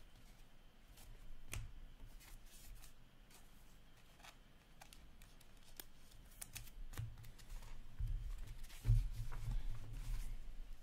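Hockey trading cards being flipped one by one through the hands: a scatter of light card clicks and slides, with duller handling bumps in the second half.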